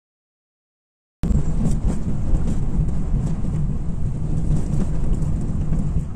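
Road noise inside a car driving on an unpaved dirt road: a steady low rumble of engine and tyres on dirt, with a few faint ticks. It starts about a second in, after a stretch of total silence.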